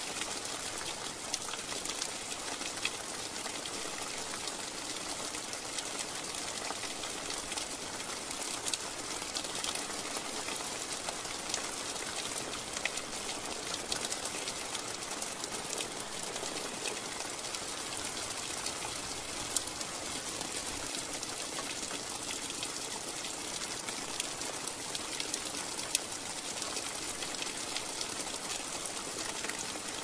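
Steady rain falling, an even hiss with sharper single drop ticks every few seconds.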